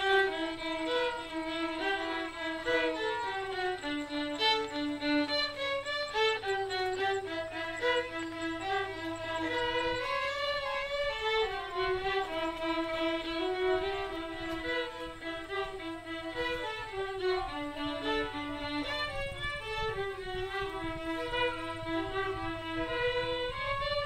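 Violin playing a flowing melody, one note gliding into the next at a steady pace.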